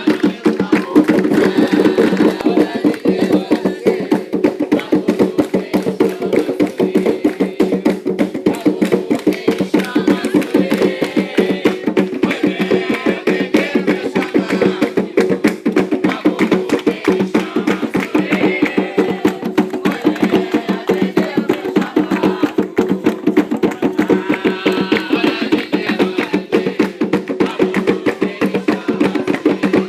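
Fast, steady drumming on hand drums keeping a driving rhythm for Umbanda ritual chanting, with voices faintly audible at times.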